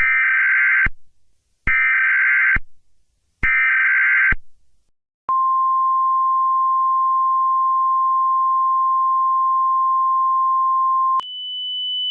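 Emergency Alert System header: three identical short buzzing data bursts about a second and a half apart, followed by a long steady single-pitch alert tone of about six seconds. A higher steady tone starts about a second before the end.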